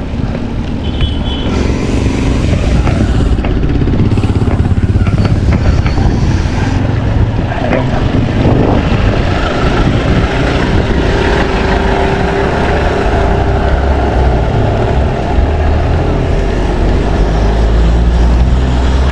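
Wind buffeting a handlebar-mounted camera's microphone as a bicycle rides along the road: a loud, steady low rumble.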